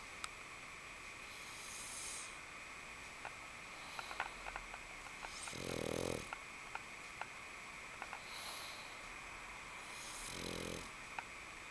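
A sleeping pug snoring: four slow, hissing breaths a few seconds apart, two of them with a low, rattling snore, the loudest about halfway through. Snoring like this is typical of the breed's short, flat muzzle.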